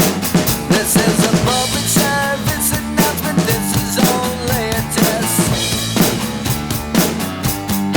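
Rock music with a drum kit beat, the drums from a Roland TD-17 electronic kit: regular kick and snare strikes under a pitched lead part that bends up and down.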